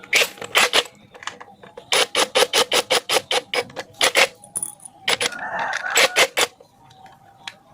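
Sharp metallic taps and clinks in quick runs of about five a second, with a short scrape about five and a half seconds in: metal tools and machine parts being knocked and handled.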